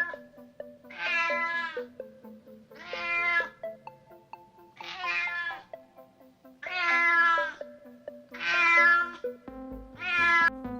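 An animal giving six drawn-out, meow-like calls, one about every two seconds, over background music.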